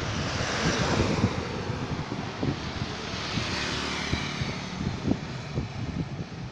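Wind rushing over the microphone of a camera carried on a moving bicycle: a steady rush with gusty low buffeting and rumble.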